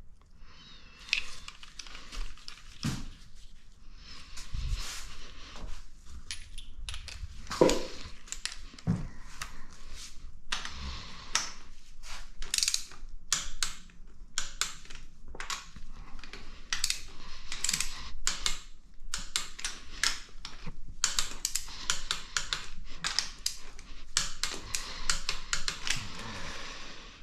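Ratchet wrench clicking in quick runs as nuts are run down and tightened, with a few louder metal knocks and clinks.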